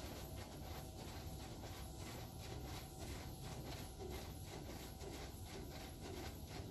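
Touchless car wash water spray beating on the car, heard from inside the cabin: a steady rush of water that pulses evenly about two to three times a second as the nozzles sweep across.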